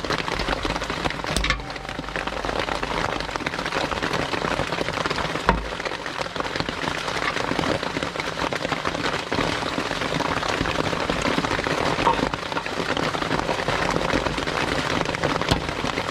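Heavy rain drumming on a tarp overhead, a dense steady patter. Two dull knocks come through it, about a second and a half in and again at about five and a half seconds.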